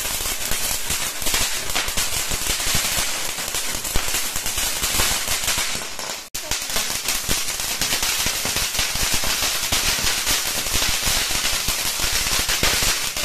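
Cone-shaped ground fountain fireworks spraying sparks with a steady, dense crackling hiss. The sound cuts out for an instant about six seconds in, then carries on just as before.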